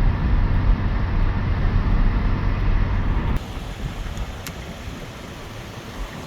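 Road and engine noise of a moving car: a steady low rumble that drops off abruptly about three and a half seconds in to a quieter hum.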